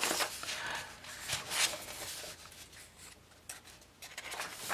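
Paper rustling and rubbing as hands handle and smooth the open pages of a paperback coloring book, loudest in the first second or so, with a few short scrapes later on.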